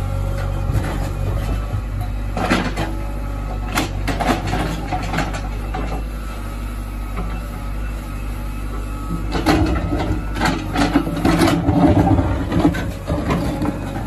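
JCB backhoe loader's diesel engine running steadily while the bucket scrapes and knocks through stony soil in a trench. The scraping and knocking come in two spells, a few seconds in and again near the end, where they are loudest.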